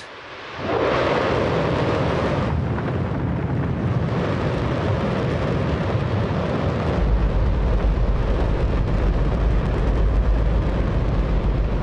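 Rocket engine firing on a test stand: a loud, steady roar starts about a second in, and a deep rumble underneath grows stronger about seven seconds in. Nearby it is the loudest sound you could possibly conceive.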